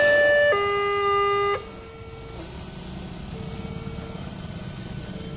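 Level-crossing warning alarm on a Wantech crossing signal sounding its two-tone signal. It switches between a higher and a lower note about once a second, then cuts off about one and a half seconds in as the train clears the crossing. A steady, quieter background of traffic noise follows, with a fainter tone recurring now and then.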